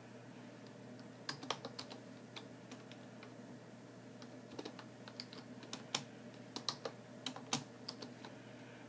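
Typing on a computer keyboard: scattered, irregular keystrokes in two spells, the first about a second in and a longer one from about halfway, over a steady low hum.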